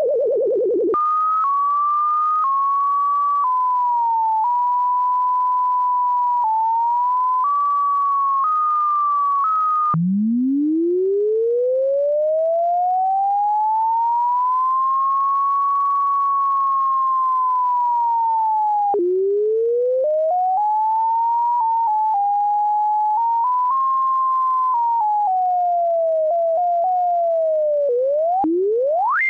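A single computer-generated sine tone whose pitch follows the height of a plotted function curve. It falls, then hops in small jagged steps around a high middle pitch. About ten seconds in it restarts low and makes one long smooth rise that levels off and sags slightly. It then climbs and falls in uneven steps and ends with a sharp upward spike.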